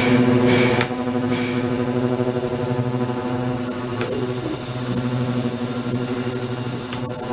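Ultrasonic cleaning tank running, its transducers driving the water and the glass jars and bottles hung in it: a steady buzz with a thin high whine that comes in about a second in.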